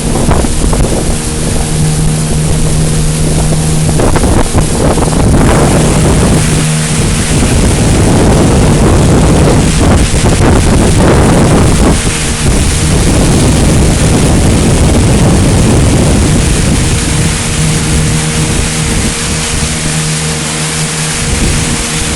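Motorboat engine running steadily while under way. For much of the middle a loud rushing of wind on the microphone and water largely drowns it out.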